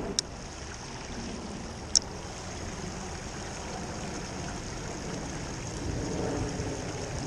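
Steady rush of a shallow creek running over rocks, with a low wind rumble. Two sharp metallic clicks about two seconds apart, the loudest sounds, from a spinning reel's bail being flipped around a cast.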